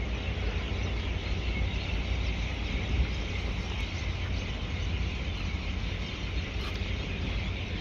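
Steady background noise: a low rumble with an even hiss above it, with no distinct events.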